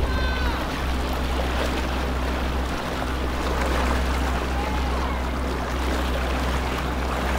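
Waterside ambience: a steady low hum of a boat motor idling under water noise, with a few faint distant voices.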